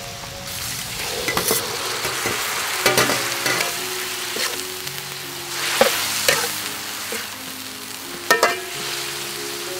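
Food sizzling as it is stir-fried in a hot metal wok, a utensil scraping through it, with a few sharper clanks against the wok. Soft background music underneath.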